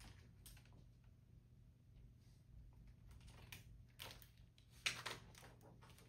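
Faint soft clicks and rustles of a picture book being handled and a page turned: a few short ones, the loudest a little before the end, over near silence.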